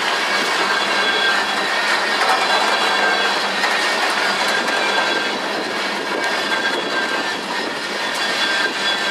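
Norfolk Southern freight train rolling past, a steady rumble and rattle of wheels on rail with a faint thin squeal from the wheels.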